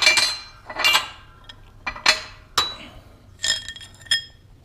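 Steel parts clinking and knocking against the steel plates of a shop press as a stripped AK barrel and its rear sight block are handled: about six separate ringing metal clinks.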